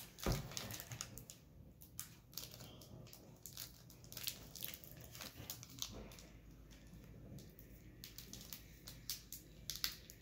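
Foil wrapper of a Pokémon booster pack crinkling as a small child's hands squeeze and tug at it, trying to tear it open, with a scatter of small crackles.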